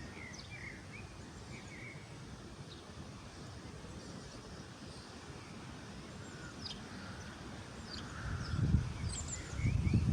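Small birds chirping and calling now and then over a low outdoor rumble. Near the end a much louder low rumble builds, buffeting like wind on the microphone.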